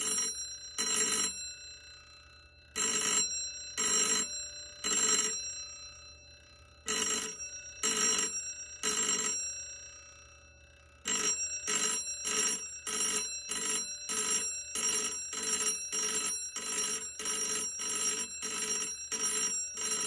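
Electric vibrating doorbell, its metal hammer rapidly striking a chrome metal gong, rung in short bursts as the power is switched on and off. It first sounds three groups of three rings in the fire-alarm code 3 pattern, then about halfway through breaks into quick even pulses at about two a second, march-time coding.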